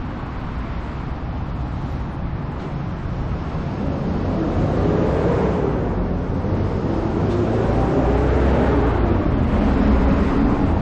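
Street traffic rumble, with a vehicle drawing near from about four seconds in: a low rumble and a wavering hum grow louder.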